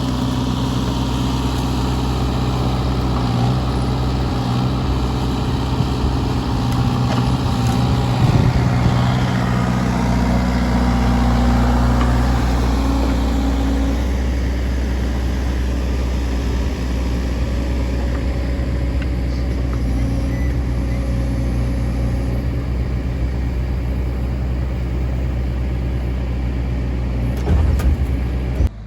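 Kubota's diesel engine running steadily while working a log grab. Its note rises and shifts for a few seconds around the middle, and there is a brief louder burst just before the sound cuts off.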